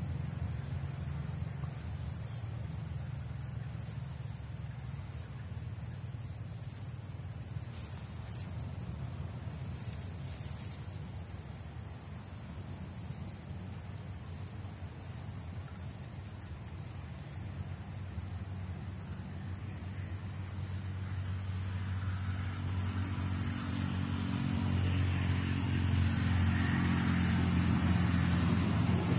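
Insects in the swamp vegetation keep up a steady high-pitched buzz over a low engine rumble. The engine of a motor vehicle grows louder over the last several seconds, as if approaching.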